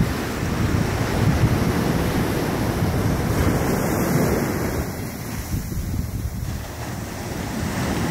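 Small ocean waves breaking and washing up a sandy beach, with wind buffeting the microphone. The wash eases for a couple of seconds past the middle, then builds again.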